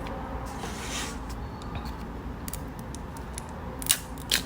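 McDonald's sweet-and-sour dipping sauce tub being handled and its foil lid peeled open: small crinkly clicks, a brief scratchy rustle about a second in, and two sharper clicks near the end.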